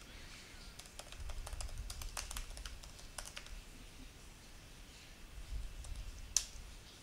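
Typing on a computer keyboard: light, irregular key clicks, with one sharper click about six seconds in.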